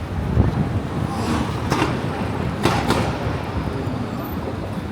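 Downtown street ambience: steady traffic rumble, with three short, sharp noises about two and three seconds in.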